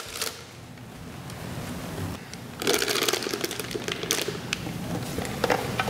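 A spatula scraping thick cream cheese filling out of a stainless-steel Thermomix mixing bowl into a plastic piping bag, with rustling of the bag. The scraping is light at first and becomes a busy run of uneven scrapes and rustles a little under three seconds in.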